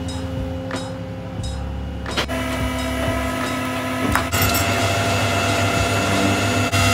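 Flatbed tow truck's engine and winch running as the stripped Honda Civic shell is pulled onto the bed: a steady mechanical drone that steps up louder about two seconds in and again about four seconds in, with a few sharp ticks in the first two seconds.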